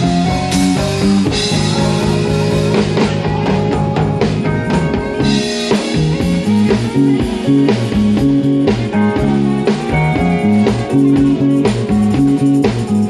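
Live soul band playing an instrumental groove: drum kit keeping a steady beat under a bass line, guitar and sustained chords.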